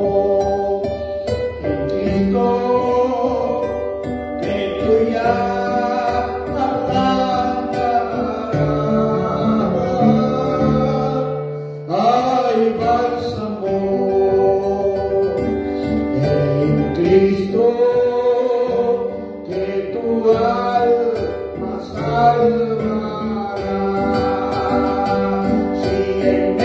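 A hymn sung by a voice with a guitar-like plucked-string accompaniment.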